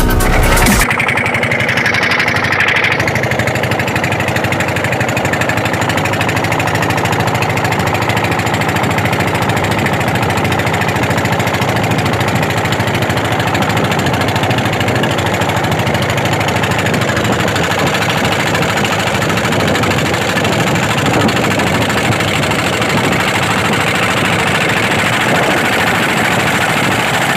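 Racing boat's engine running steadily at high speed under load during a speed run, with water rushing past the hull. Music cuts off about a second in.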